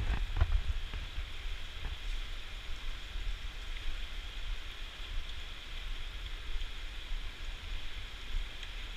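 Steady hiss of water in an indoor swimming pool, over a low rumble.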